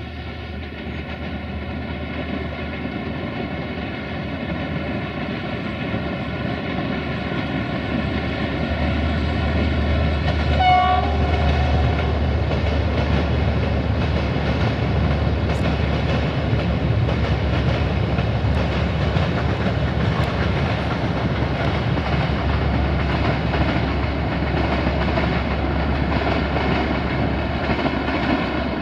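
Diesel-hauled passenger train running, a low engine rumble building louder over the first ten seconds and then holding steady, with a short horn toot about eleven seconds in.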